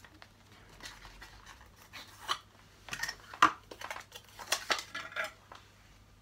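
Small cosmetics being handled: a plastic blush compact and packaging clicking and tapping, a scattered series of sharp clicks with the loudest about three and a half seconds in.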